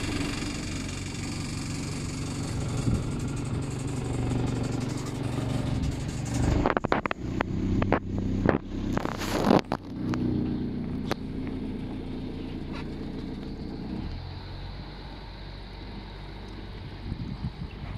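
Perkins 4108 four-cylinder marine diesel running steadily. Loud irregular bursts of noise come in from about six to ten seconds in, and the engine settles to a quieter, lower note near the end.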